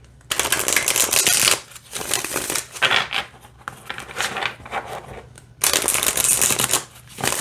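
A deck of glossy, laminated, gilt-edged tarot cards being shuffled, with two long rushes of cards riffling together about a second and a half each, and quieter sliding and squaring of the deck in between. The cards glide freely without sticking.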